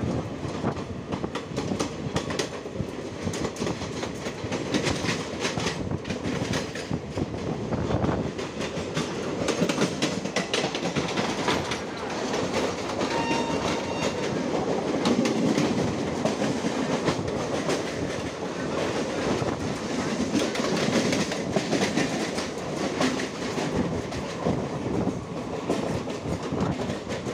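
Express passenger train coaches running close alongside at speed: a steady rumble with wheels clattering over rail joints in many quick clicks.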